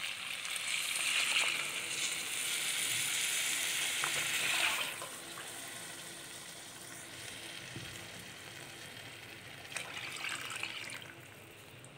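Coconut milk poured in a stream into a hot pressure cooker of masala-fried rice and chicken. It gushes and splashes loudly for about five seconds, then settles to a softer sizzle, with a second short pour around ten seconds in.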